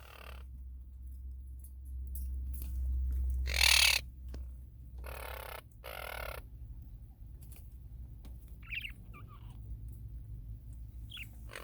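Pet green budgerigar giving a few short, high chirps in the second half, over a steady low hum. Earlier there are three loud rustling bursts, the first the loudest.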